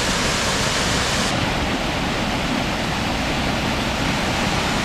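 Steady rush of a triple waterfall pouring over a limestone cliff, running high with a swift flow; the highest part of the hiss dulls slightly about a second in.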